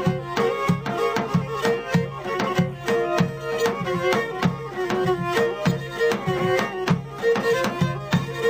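Pontic Greek folk music, an instrumental passage between sung verses: a bowed Pontic lyra playing the melody over a steady drum beat.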